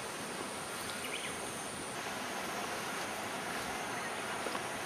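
Steady, even outdoor background hiss with a faint high steady tone above it; no single sound stands out.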